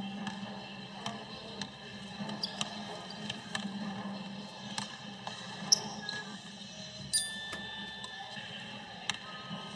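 Basketball bouncing on a hardwood gym floor in a one-on-one game: irregular thuds and slaps of the dribble, with a short squeak about seven seconds in, over a steady low hum.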